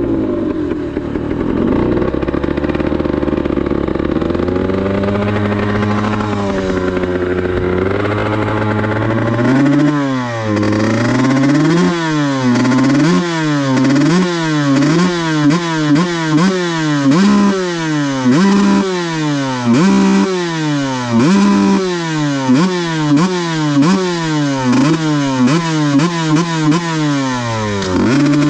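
Kawasaki Ninja grasstrack motorcycle engine idling with slight swells, then from about ten seconds in revved in quick repeated throttle blips, its pitch jumping up and dropping back many times.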